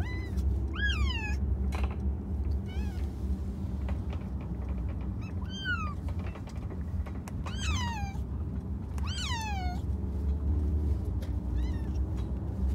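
Kittens shut in pet carriers meowing unhappily, about six drawn-out meows, each falling in pitch. A steady low hum runs underneath.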